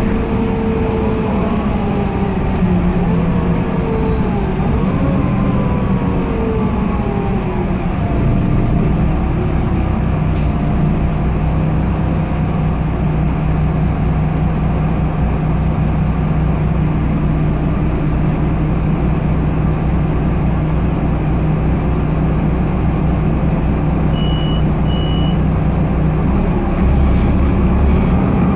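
Cabin sound of a Solaris Urbino 18 III articulated bus, powered by a DAF PR228 diesel through a Voith D864.5 four-speed automatic. For the first several seconds its engine and driveline tones glide downward, then they settle into a steady low hum. Two short high beeps sound near the end, and the level rises slightly just before the end.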